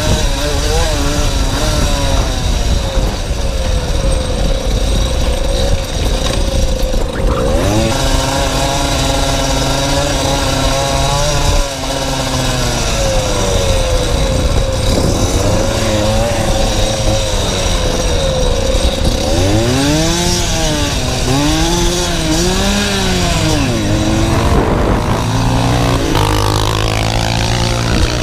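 Small motorcycle engine under way, its pitch rising and falling as the throttle is rolled on and off, with a short drop about twelve seconds in and a run of quick rev swells in the second half. Wind rumbles on the microphone underneath.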